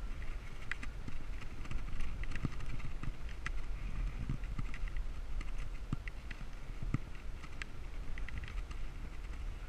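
Bicycle ridden along a tarmac road, heard on an action camera's microphone: a steady low rumble of wind and road, with light rattling clicks at irregular times.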